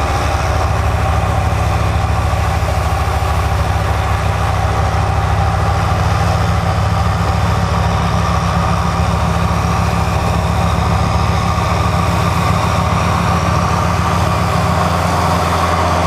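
Kubota L5740 tractor's diesel engine running at a steady speed.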